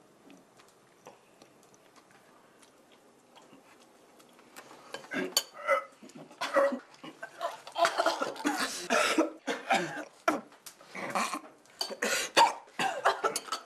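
A few seconds of quiet, then a person coughing in repeated, irregular fits that go on to the end, set off by a mouthful of cod sugar cake.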